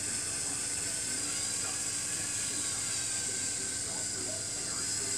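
LEGO Power Functions electric motors whirring steadily through plastic Technic gears as the crane's boom and hook are worked, with a steady high hiss. The superstructure motors run slowly on weak batteries.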